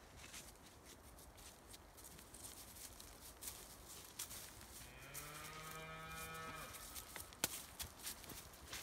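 A Highland cow moos once, about five seconds in: a single call of just under two seconds that rises slightly in pitch at the start and then holds. A few sharp clicks sound near the end.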